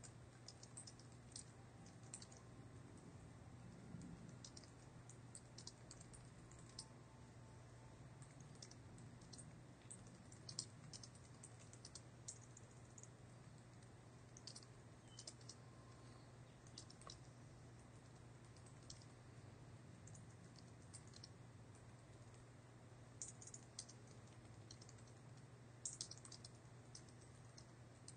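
Faint typing on a computer keyboard: irregular keystrokes in short runs with brief pauses, over a steady low hum.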